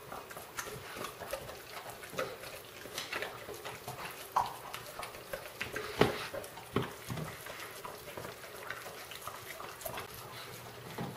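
Dogs eating raw meat from their bowls: wet chewing and smacking of jaws with an irregular run of sharp clicks, the loudest about six seconds in.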